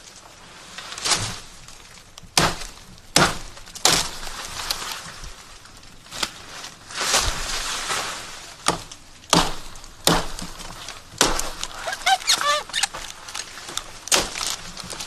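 Machete blows chopping into spiny green plant stalks, about a dozen sharp strikes at irregular intervals, with rustling of leaves and stems between them.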